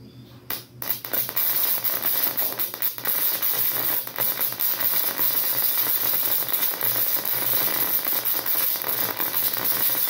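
High-voltage electric arc from a flyback transformer charged into a microwave-oven capacitor, sizzling and crackling continuously across the gap between its terminals. It starts with a brief burst about half a second in and then runs steadily.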